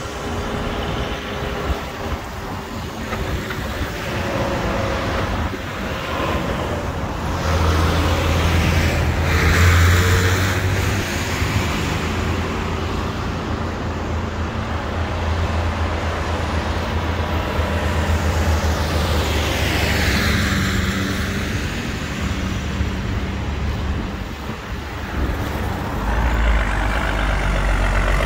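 Road traffic passing one vehicle after another on a wet road, tyres hissing, with low engine rumble. Near the end a big diesel farm tractor, a red Massey Ferguson, comes close and its engine grows loud.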